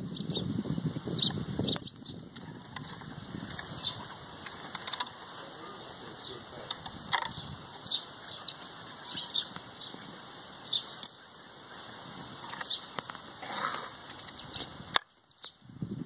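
Hum and wing-whirr of a small cluster of dwarf honey bees, with short high chirps scattered throughout. A louder rush of noise fills the first two seconds, and the sound drops out briefly near the end.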